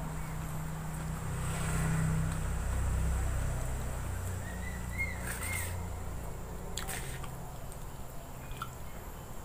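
Steady low rumble that swells for about two seconds near the start, with a few faint chirps about five seconds in and two sharp clicks.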